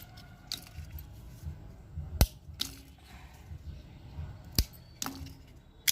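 Dry cinnamon sticks being snapped by hand and dropped into a kadhai: a few sharp, separate cracks, the loudest about two seconds in and another a little past four seconds.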